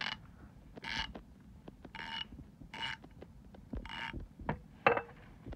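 Gearwrench 1/2-inch drive 84-tooth ratchet being worked back and forth by hand, giving five short bursts of fine ratchet clicking about a second apart, then one sharper click near the end.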